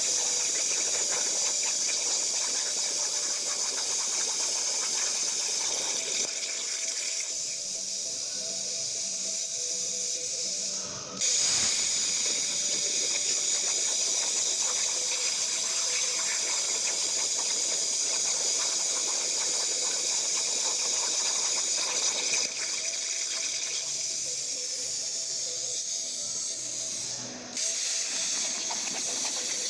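Hypertherm Powermax1250 G3 plasma torch on a CNC table cutting steel sheet: a steady, loud hiss of the arc and its air jet. The hiss stops briefly and starts again sharply twice, about a third of the way in and again near the end, as the arc goes out and restarts.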